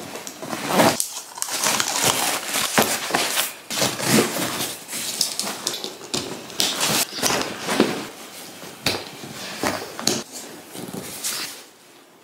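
Handling noise from packing a backpack: nylon fabric rustling, straps being pulled and buckles clicking while a rolled foam sleeping mat is strapped on. It comes in irregular bursts with sharp clicks, quieter near the end.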